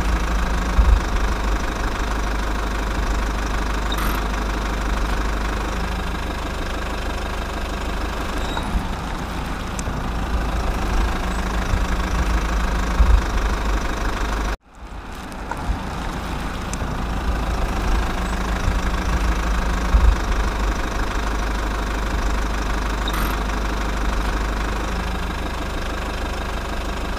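A steady engine running, cutting off abruptly about halfway through and fading back in.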